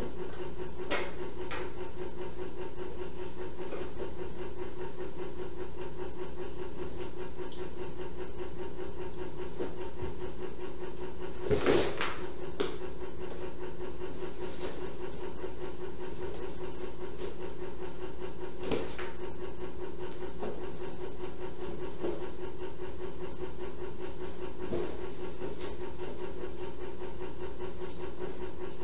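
A steady machine-like hum with a held tone runs throughout. It is broken by a few faint clicks and one louder knock about twelve seconds in.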